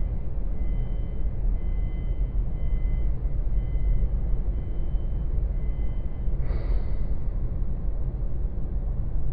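Steady low rumble of a car ferry's vehicle deck, heard from inside a waiting car, with a faint high tone coming and going. About six and a half seconds in there is a brief hiss.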